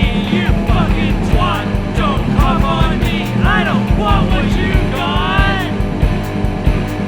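Rock band playing a song demo: a fast steady drum beat under bass and guitar, with a lead melody line that bends up and down.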